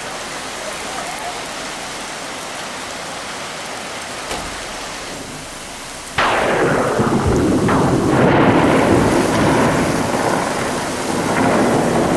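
Steady heavy rain falling. About six seconds in, a sudden loud clap of thunder breaks in and rolls on for several seconds.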